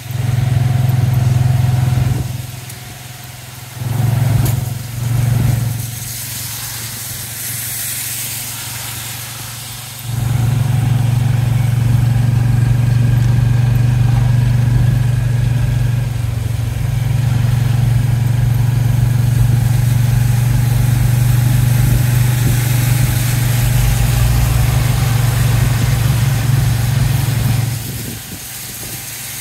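Tuk-tuk engine heard from the passenger carriage as it drives along a wet road: loud for the first two seconds, two short surges around four and five seconds in, then running loud and steady from about ten seconds in until shortly before the end.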